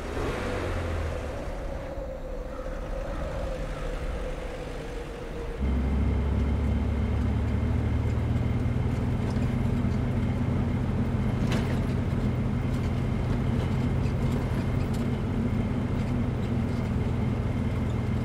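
Vehicle engine running steadily, heard from inside the van's cabin as a low hum that cuts in suddenly about five and a half seconds in, after a quieter stretch with a faint steady tone. A single sharp knock comes around the middle.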